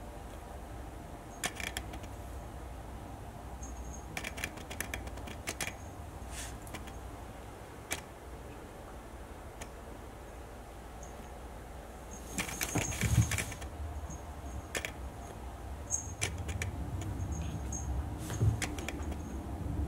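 Kitten's claws clicking and scrabbling on a hardwood floor as it dashes and pounces around a fabric mat, in scattered bursts of sharp ticks. The busiest, loudest flurry comes about two-thirds of the way through, with a few soft thumps of landing paws.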